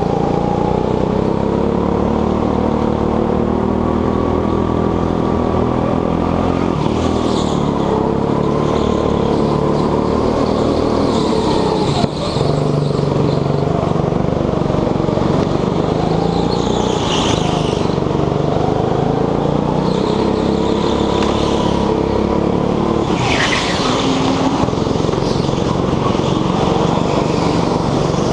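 Petrol go-kart engine heard from on board, its pitch rising and falling as the kart accelerates out of and slows into corners, with brief high tyre squeals at a few corners. A single sharp knock about twelve seconds in.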